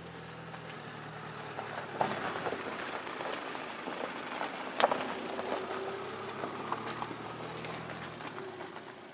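Mitsubishi Outlander SUV driving past on a gravel dirt track: its engine runs low and steady while the tyres crunch and pop on the gravel, with a sharp crack about halfway through. It grows louder as it draws alongside.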